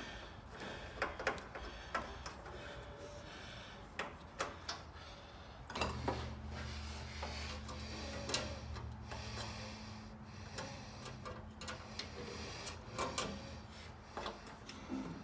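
Workshop sounds of hand work on parts: scattered clicks, knocks and scraping. About six seconds in a low steady hum starts, strong for a few seconds and then fainter.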